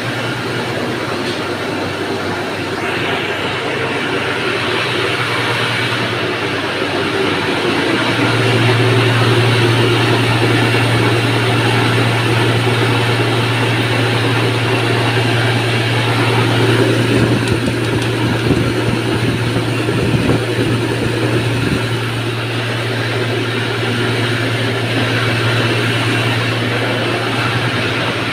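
Electric stone flour mill (atta chakki) running: a steady low hum from its motor over a continuous rush of grinding noise, the hum getting stronger about eight seconds in.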